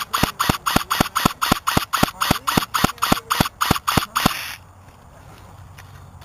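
JG Skorpion vz.61 electric airsoft gun firing single shots in quick succession, about four a second, then stopping about four seconds in.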